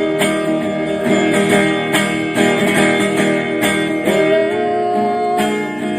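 Instrumental break of a song's accompaniment, led by guitar, with a melody line that bends between notes and no singing.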